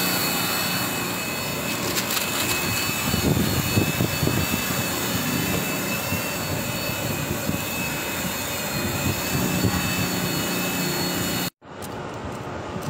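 Steady drone of machinery with a thin high whine, with a few knocks of handling about three to four seconds in. The sound cuts out abruptly near the end and resumes quieter.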